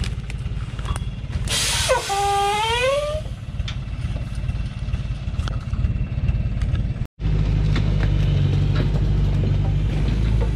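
Loaded logging truck's diesel engine running steadily in low gear as it crawls uphill on a dirt forest track. A short rising high-pitched call cuts across it about two seconds in. The drone breaks off for an instant about seven seconds in and returns louder.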